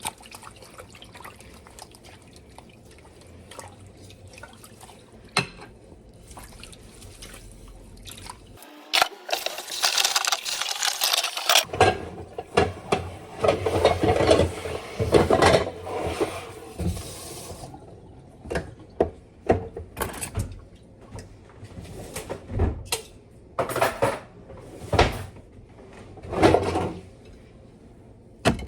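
Dishes being washed at a sink: dishes and cutlery clink and knock against each other repeatedly, and water runs from the tap for a few seconds near the middle.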